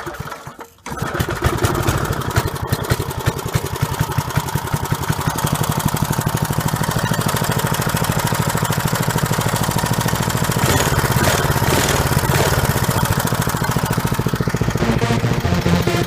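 A 1970s minibike's small engine is pull-started, catching on the first pull about a second in, then running steadily.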